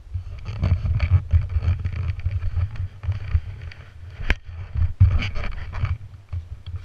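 Rubbing and bumping from a helmet-mounted camera as the wearer walks out through a doorway, an uneven low rumble with two sharp knocks in the second half.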